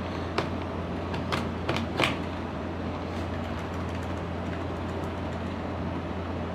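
Keyboard Delete key tapped about four times in the first two seconds to enter the BIOS setup during boot, sharp plastic clicks over a steady low hum.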